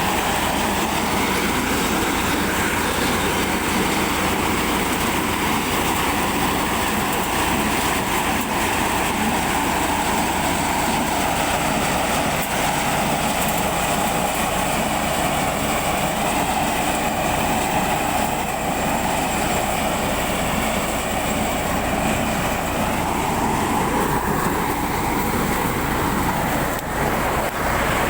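Corn harvester running steadily, engine and machinery together, with a whine whose pitch drifts slowly up and down and a short dip near the end.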